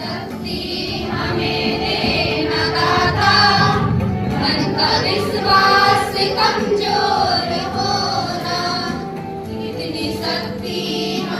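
A group of women's voices singing a song together over held instrumental notes.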